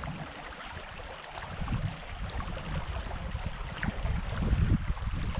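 Wind buffeting the microphone in uneven gusts, over the steady rush of a small creek.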